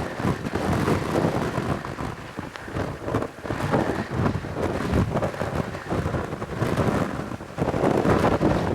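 Strong gusting wind buffeting the microphone, a rumbling noise that surges and dips unevenly.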